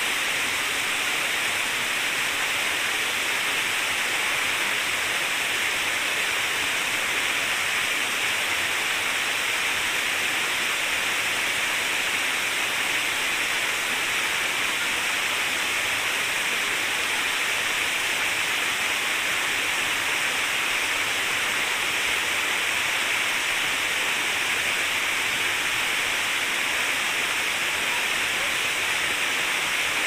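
Mountain stream rushing over rocks and small cascades: a steady, even hiss of flowing water.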